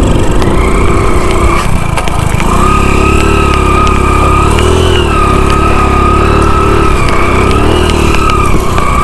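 Small motorcycle engine running at low speed as it rides over a rough, rocky trail, with knocks from the bumps in the first couple of seconds. A wavering whine runs over the engine.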